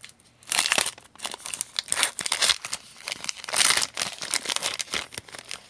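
Foil wrapper of a trading-card pack crinkling and tearing as it is opened by hand, in crackly bursts about half a second in, around two seconds and again around three and a half to four seconds, with smaller crinkles between.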